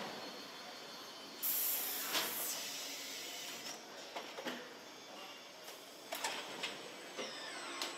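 Car assembly-line station: a loud hiss about a second and a half in, lasting about a second, over a steady machine background, with scattered clicks and knocks of the fixture and parts through the rest.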